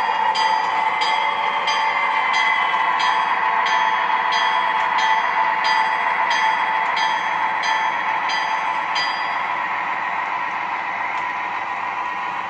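Model train rolling past, an Illinois Central SD40-2 model diesel pulling boxcars: a steady motor whine and wheel rumble, with the wheels clicking over the track joints about twice a second until about three-quarters of the way through.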